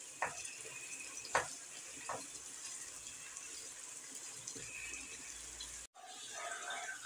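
Roasted peppers simmering in vinegar and oil in a frying pan: a faint steady sizzling hiss. A wooden spoon stirring them gives a few sharp knocks against the pan in the first two seconds. The sound drops out for an instant about six seconds in.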